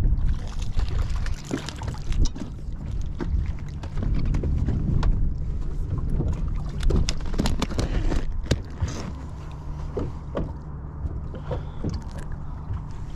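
Wind rumbling on the microphone aboard a small fishing boat, with scattered sharp clicks and knocks of tackle and the fish being handled.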